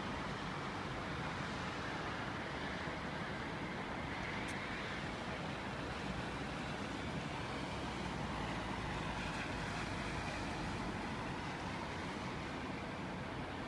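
Steady hum of distant city traffic, an even noise with no single vehicle standing out.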